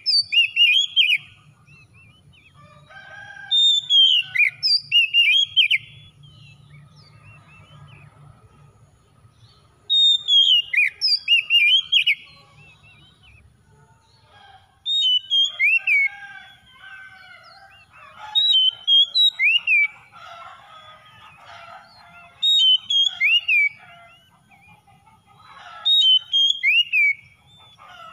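Oriental magpie-robin singing in repeated short phrases of rapid, swooping whistles, each a second or two long, about seven phrases with pauses of a few seconds between.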